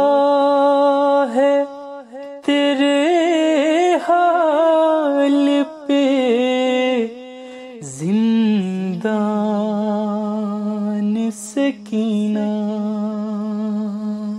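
Male voice singing a noha, a Shia mourning lament, in long drawn-out held notes that waver and bend in pitch, with short breaks between phrases.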